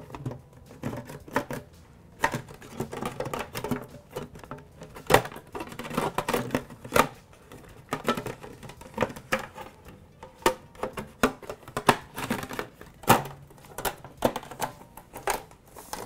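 Irregular clicks and light knocks of a QNAP TS-453A NAS enclosure being handled as its cover and latches are fitted back into place.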